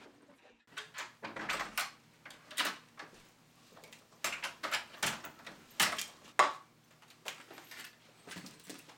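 A series of short knocks and rustles as a paper coffee cup, papers and a textbook are set down one after another on a table.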